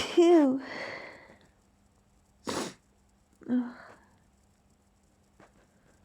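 A person sneezing while trying to keep it quiet: a sneeze ends with a brief wavering voiced sound and a fading breath, then two shorter sneezes follow about two and a half and three and a half seconds in.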